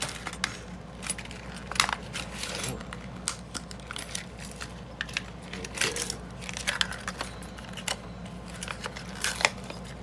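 Plastic blister packaging of a padlock being cut and pulled open with a knife: irregular crackling and scraping of the plastic with scattered sharp clicks. Near the end come metallic clinks as the brass padlock and its keys come out.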